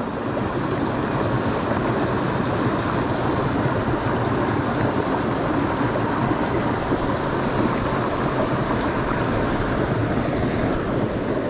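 Steady rush of a small creek's running water.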